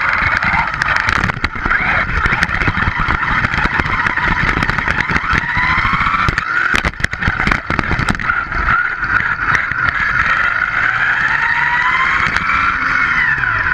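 ECX Revenge Type-E electric RC buggy driving on rough asphalt, heard from a camera mounted on the car. Its brushless motor and drivetrain whine, rising and falling with speed, over a steady rumble of tyres on the road. Short knocks and rattles come from bumps, most of them a few seconds past the middle.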